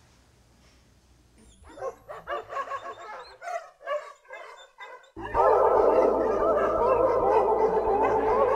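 Dogs barking and yelping irregularly, beginning about a second and a half in. About five seconds in, a loud, dense chorus of sustained, wavering howls comes in over a steady low hum.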